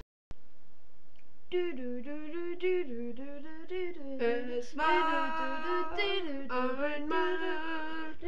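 A voice humming a wordless tune without accompaniment, starting about a second and a half in, after a single short click.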